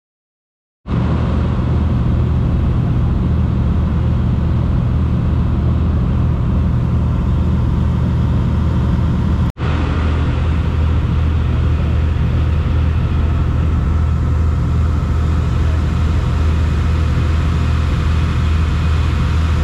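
A fishing party boat's engines running steadily under way, a low drone mixed with the rush of the wake and wind on the microphone. It starts about a second in and cuts out for an instant about halfway through.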